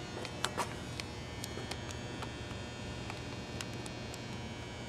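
Steady electrical mains hum, with a few sharp clicks and taps, the strongest about half a second in.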